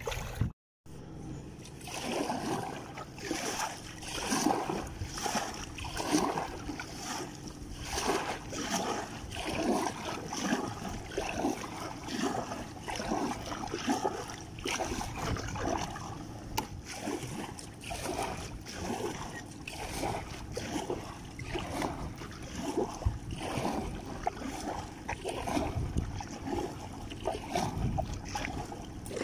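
Kayak paddle strokes splashing in river water, a swell of splashing roughly every second and a half. The sound cuts out briefly just under a second in.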